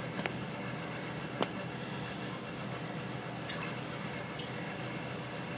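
Coconut milk warming in a steel pan on the stove: a steady hiss with a couple of faint ticks or pops, one just after the start and another about a second and a half in.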